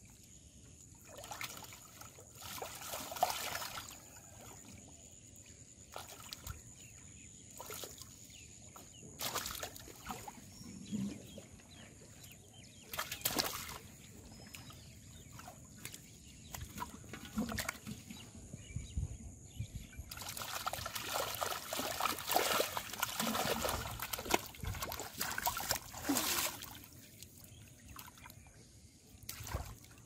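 Shallow water splashing and sloshing in irregular bursts as hands grab and handle fish in it, busiest about two-thirds of the way through.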